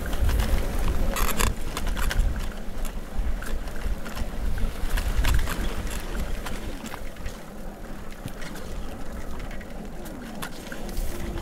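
Wind rumbling on the microphone while riding a bicycle over a bumpy dirt track, with the bike rattling and knocking over the ruts. It eases off somewhat in the second half.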